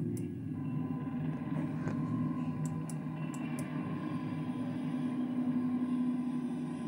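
Quiet background music over a steady low hum, with a few faint clicks near the start and in the middle.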